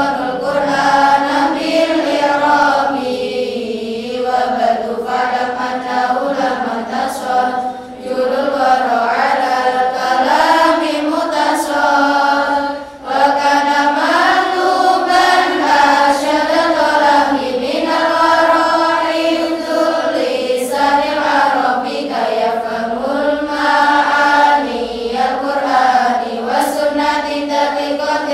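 A large group of female students chanting memorised Arabic grammar verses in unison (lalaran), a repetitive sing-song melody. The chant breaks briefly for breath twice, about 8 and 13 seconds in.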